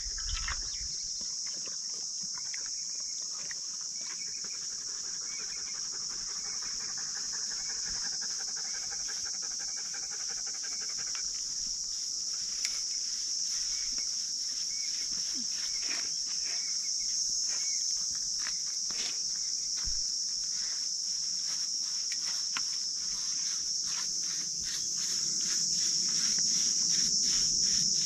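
Steady, high-pitched chorus of insects droning throughout, with a dog panting quickly for several seconds early on. Scattered light clicks and rustles are heard through the second half.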